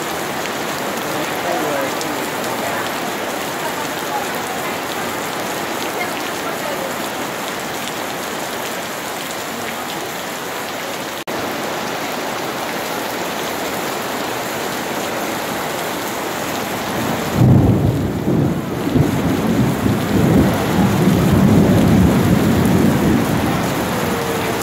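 Steady rain falling. About two-thirds of the way in, a long, low rumble of thunder starts suddenly and lasts several seconds, loudest at its onset and again a few seconds later.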